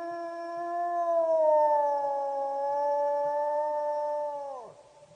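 Gray wolf howling: one long, steady call that eases slightly lower in pitch about a second and a half in, then drops away sharply near the end.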